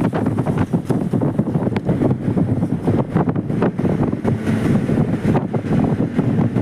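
Wind buffeting the microphone: a loud, uneven rumble with irregular crackles.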